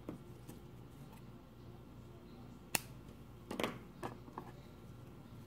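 Faint handling of crochet yarn and work piece, with one sharp click about three seconds in, a short rustle just after it and a few faint ticks, over a steady low hum.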